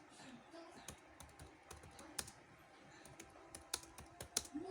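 Typing on a computer keyboard: faint, irregular keystrokes, with a few sharper key clicks in the second half.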